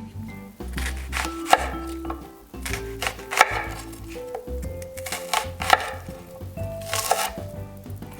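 Knife cutting food on a cutting board: a series of crisp, unevenly spaced strokes, over soft background music.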